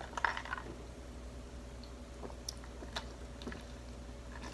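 Faint mouth sounds of sipping a drink through a straw: a short sip or swallow shortly after the start, then small scattered clicks.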